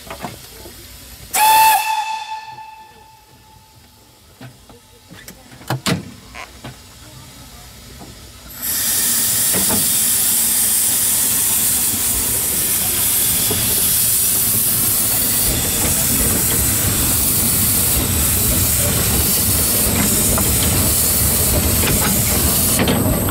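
The Wee Georgie Wood steam locomotive gives one short whistle toot, signalling departure, followed by a few knocks in a quiet stretch. About eight seconds in, a loud steady hiss of steam starts as the engine gets under way.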